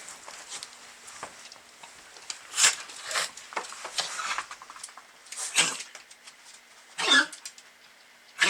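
Several short coughs from an animal, spaced a second or two apart.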